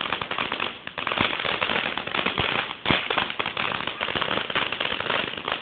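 Ground firework crackling as it throws out sparks: a rapid, continuous stream of sharp pops, with a few louder bangs about one and three seconds in.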